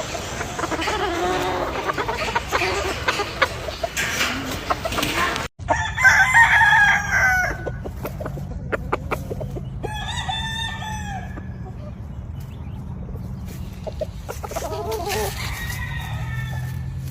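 Roosters crowing three times over a flock of chickens clucking; the first crow, about six seconds in, is the loudest.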